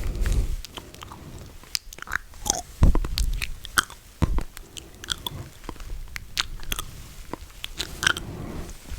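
Close-miked ASMR mouth sounds: irregular wet clicks, smacks and tongue pops, with a few low thumps on the microphone, near the start and about three seconds in.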